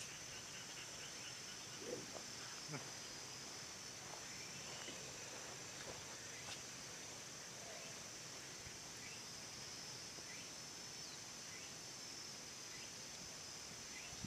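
Faint steady insect chorus, a continuous high-pitched trill, with a couple of soft knocks about two seconds in.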